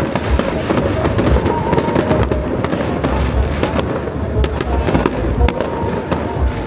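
Fireworks going off: a dense, continuous run of cracks and pops with low booms underneath, heard over music.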